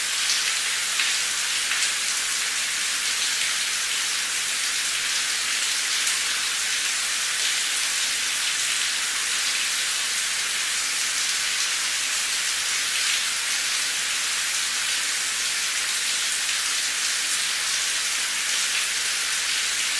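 Steady rain falling, a dense even hiss with scattered drops pattering on a surface.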